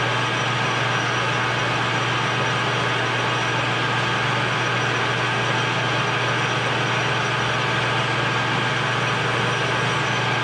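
Grizzly G0776 gunsmithing lathe running steadily with a constant hum and whine while a No. 5 centering bit in the tailstock drill chuck cuts a centre hole in the end of the spinning sleeve.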